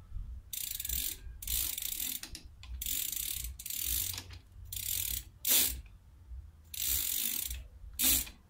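Freewheel pawls of a semi-sealed BMX cassette rear hub ratcheting in about eight short buzzing runs as the rear wheel and cranks are turned by hand. Two of the runs, about halfway and near the end, are shorter, sharper and louder.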